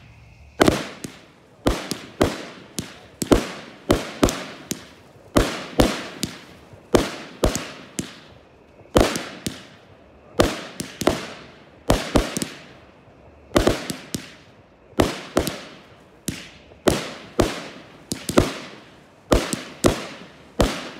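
Aerial consumer fireworks going off in rapid succession: a steady string of sharp bangs, about one every half second to one second, each trailing off in a fading echo.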